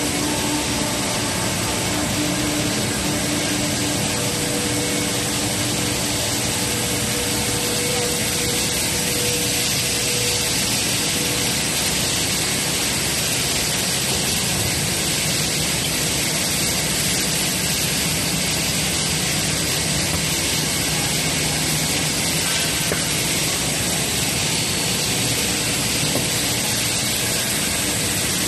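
Steady, loud machinery noise from a running black masterbatch compounding and extrusion line: a continuous hiss with a motor hum underneath, unbroken throughout.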